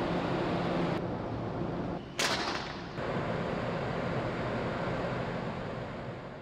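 Steady rushing noise of wind and water from a ferry's open deck, with a sudden loud blast about two seconds in; the sound fades out near the end.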